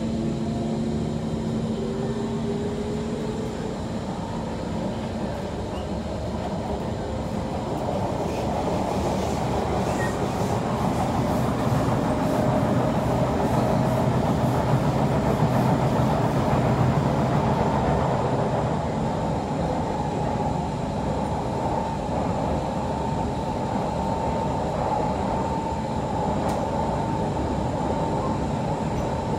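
Kawasaki C151 electric metro train running, heard from on board. The motor whine rises in pitch over the first few seconds as the train picks up speed. Then comes steady wheel-on-rail running noise that swells towards the middle, with a high steady whine in the second half.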